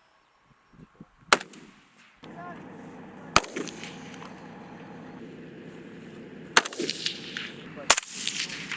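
Gunfire: single sharp shots about a second in and three and a half seconds in, a quick run of shots near seven seconds, and another shot near eight. A steady mechanical hum starts about two seconds in and carries on under the shots.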